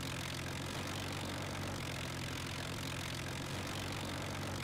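Avro Lancaster's Rolls-Royce Merlin V-12 piston engines running steadily at low power, a deep even drone.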